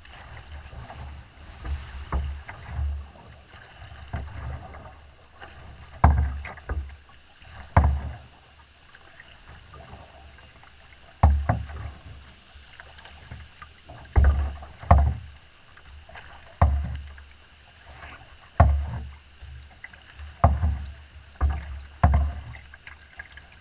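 Wind-driven chop slapping and splashing against the hull of a small paddled boat, with irregular thuds every second or two over a steady rush of water and wind.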